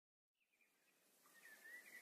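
Near silence, with faint chirping and hiss slowly fading in over the second half.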